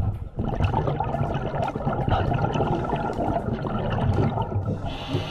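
Scuba diver's exhaled bubbles gurgling out of the regulator, heard underwater, for about four and a half seconds. A short hiss follows near the end.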